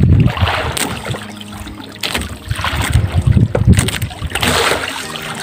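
Waves slapping and splashing against the hull of a small outrigger boat at sea, with wind buffeting the microphone in repeated surges.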